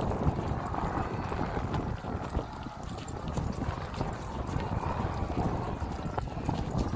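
Hoofbeats of several horses moving across grass pasture, the nearest from the horse carrying the microphone, in an irregular run of dull thuds.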